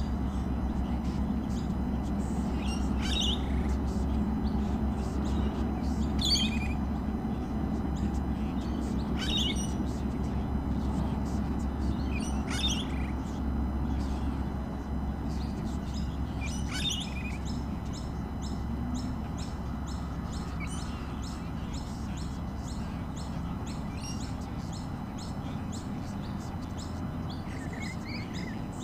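Birds calling: short, sharp, high calls falling in pitch, repeated about every three seconds, then fainter quick twittering in the second half, over a steady low rumble.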